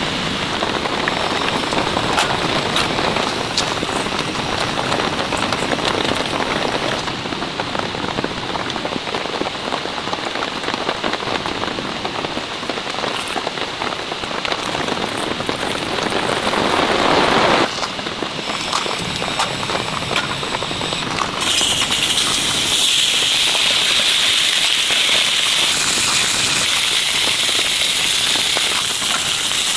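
Heavy rain falling steadily, with many individual drops ticking. The sound changes abruptly twice; the last stretch is a steadier, hissier downpour.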